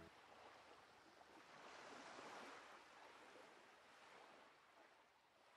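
Faint sea surf: a wash of noise swells about two seconds in, then slowly fades.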